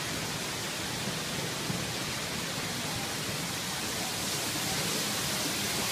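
Steady rushing hiss of background noise, even and without any distinct events, growing slightly brighter about halfway through.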